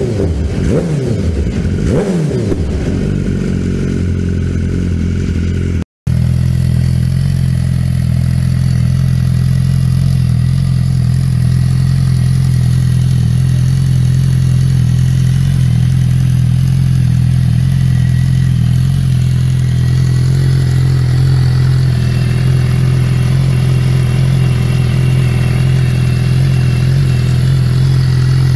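BMW S 1000 RR inline-four engine through an Arrow exhaust: a couple of quick throttle blips, then it settles. After an abrupt cut about six seconds in, a second S 1000 RR with an Arrow exhaust idles steadily.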